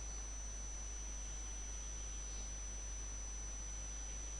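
A steady high-pitched whine over a low hum and faint hiss: electrical background noise of a screen-recording microphone setup.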